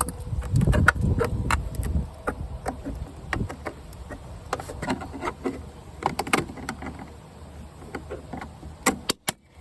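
Plastic clicking, tapping and scraping as the interior door handle shell of a 2005 GMC Savana van is worked and pried apart by hand with a screwdriver, many small sharp clicks, with rumbling handling noise in the first couple of seconds and a quick cluster of sharp clicks near the end.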